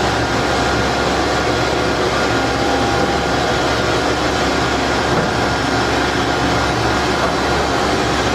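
CNC structural-steel drill line running: a steady mechanical hum and whir with faint steady tones, without breaks or sharp knocks.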